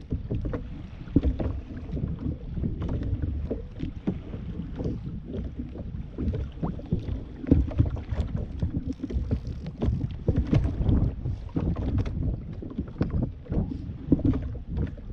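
Wind buffeting the microphone and choppy sea water slapping against a kayak's hull: an irregular low rumble broken by short knocks and gusts.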